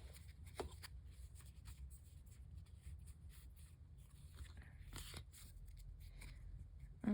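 Faint rustling and light clicks of Pokemon booster pack wrappers and cards being handled, over a steady low hum.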